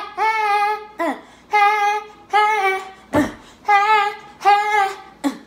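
A woman singing a string of short, held notes at nearly one pitch, roughly one note every three-quarters of a second, with a brief thump about three seconds in.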